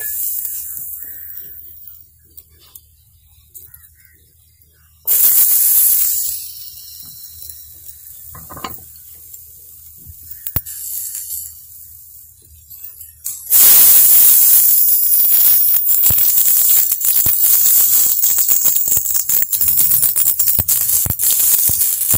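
Chopped garlic, onion and diced tomato sliding into hot oil in a cast-iron pan, each setting off a sizzle. There is a brief hiss at the start, a louder one about five seconds in that fades, and the loudest about two-thirds of the way in, which keeps crackling steadily.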